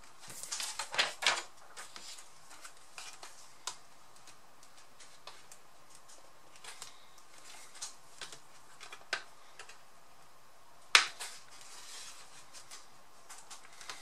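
Light clicks and taps of an ASUS X202E laptop's plastic case being handled, closed and turned over on a work mat. They come in a dense cluster in the first second and a half, then as scattered small clicks, with a single sharp click about eleven seconds in.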